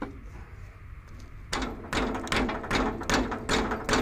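A wrench being worked hard on a stuck steel lid of a hydraulic valve housing: a rapid run of metal clanks and rattles starting about a second and a half in. The lid is seized and not coming loose.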